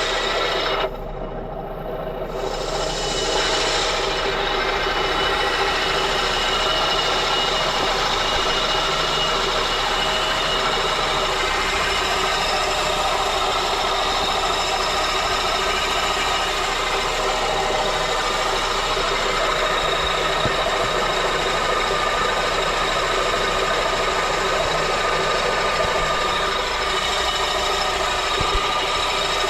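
Honda K24 four-cylinder engine running with a steady metallic grinding from the engine bay, briefly muffled about a second in. The grinding comes from a failing AC compressor pulley.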